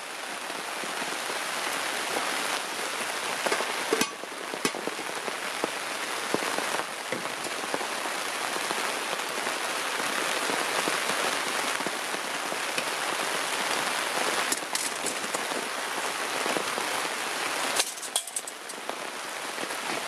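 Steady patter of rain falling on a tarp shelter, with a few light clicks.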